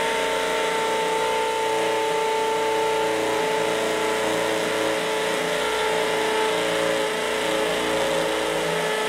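Ingco 96 Nm brushless 20 V cordless impact drill in high gear with the hammer function on, drilling into a brick. It gives a steady whine over a dense hammering noise, at an even level throughout.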